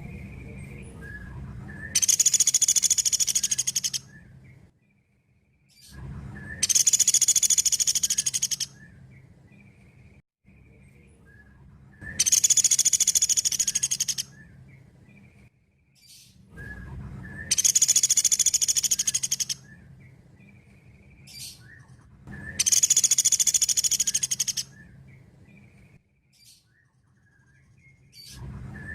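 Pelatuk beras (velvet-fronted nuthatch) calling in loud, rapid, high-pitched trills of about two seconds each, repeated five times roughly every five seconds, with faint short chirps in between.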